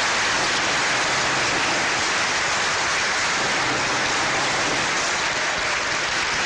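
A large crowd applauding: dense, steady clapping.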